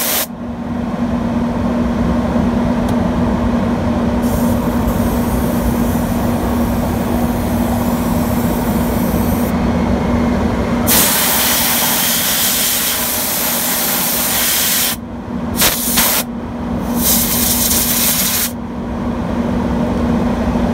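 Diesel truck engine idling with a steady hum, while a loud hiss starts and stops sharply several times, longest from about eleven to fifteen seconds in.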